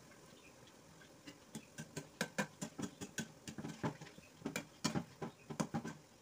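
Hot oil sizzling as dough balls deep-fry in an aluminium kadai, joined about a second in by a rapid, irregular run of sharp clicks and taps as a slotted steel spoon stirs and turns the balls in the pan.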